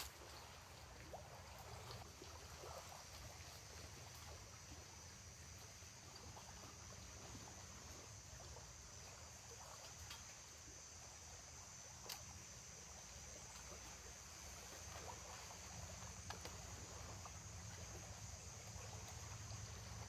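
Faint outdoor ambience: a steady low rumble and a steady high hiss, with a few soft clicks.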